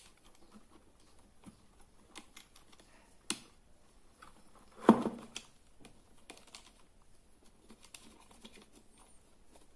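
Small clicks and taps of a plastic rechargeable hand torch's housing and switch being handled as they are fitted back together, with one louder knock about five seconds in.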